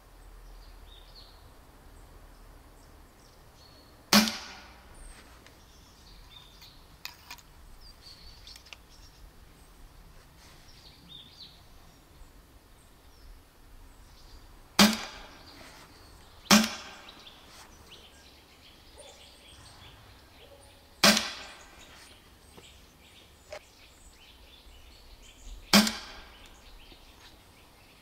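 Five shots from an FX Dreamline 7.5-joule pre-charged air rifle firing blowgun darts down a Kevlar tube barrel, each a sharp crack with a short tail. They come at uneven intervals: about 4, 15, 16.5, 21 and 26 seconds in. Faint clicks fall between some shots.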